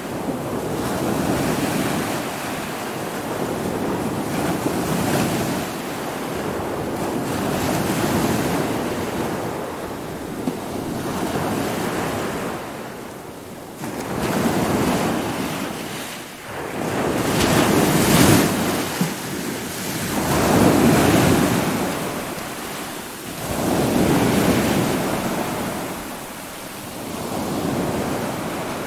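Stormy sea: waves surging and breaking with wind, in swells that rise and fall every few seconds. The heaviest surges come about two-thirds of the way through.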